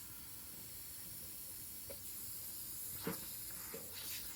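Compressed air hissing steadily through the Virutex SVN 460 vacuum clamp's air-driven outlet, with a couple of brief knocks about three seconds in.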